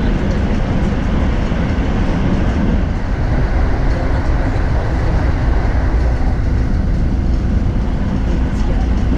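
Electric commuter train running on the line, heard from inside the passenger car: a steady, loud low rumble of wheels on rail.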